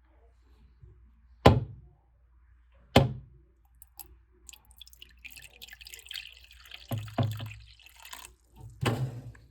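Water being poured into a reptile's water bowl, a steady splashing pour lasting about four seconds. Sharp knocks from the bowl or enclosure being handled come twice before it and again near the end.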